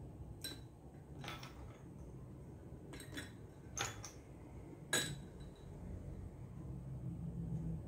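A metal spoon clinking against small ceramic bowls and a drinking glass as ice and boba pearls are spooned into a glass of milk tea: a handful of separate, sharp clinks, the loudest about five seconds in.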